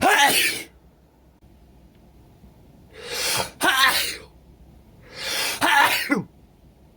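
A man sneezing three times in a row, roughly every two to three seconds, in an allergic sneezing fit. The second and third sneezes each start with a sharp gasping in-breath and end in a cry that falls in pitch.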